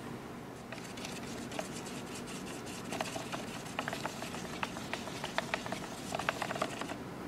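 A stir stick scraping and clicking against the sides of a plastic mixing cup while blue pigment is stirred into epoxy. It starts about a second in, grows into quick irregular clicks in the second half and stops near the end, over a steady low hum.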